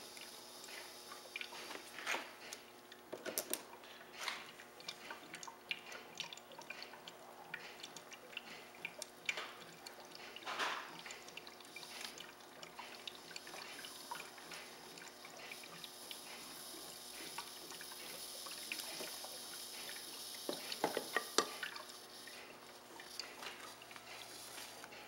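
Water bubbling and dripping with many small irregular clicks and pops, from the running HHO electrolysis cell making gas. A cluster of louder clicks comes about 21 seconds in.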